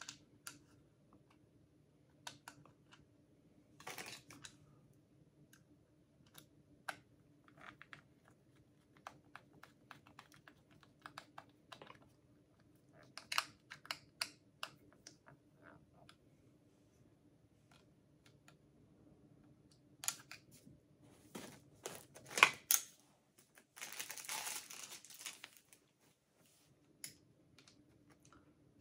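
Scattered small clicks and taps of a cordless hair clipper's plastic housing and small parts being handled and fitted back together, with a short rustle about 24 seconds in.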